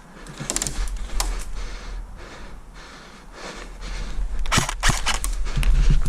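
Rustling movement noise with scattered sharp clicks, then a quick run of sharp snaps about four and a half seconds in and more near the end, like airsoft guns firing.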